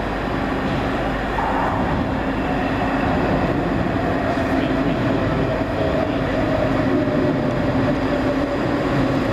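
ScotRail Class 334 electric multiple unit drawing slowly into the platform, a steady rumble with a hum and a faint tone that falls slightly as it slows, growing a little louder as it approaches.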